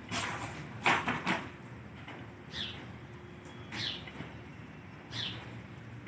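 An empty cardboard pizza box scraping and sliding on wet stone tiles as a gull tugs and pecks at it: several short scrapes, the loudest cluster about a second in, then single scrapes every second or so.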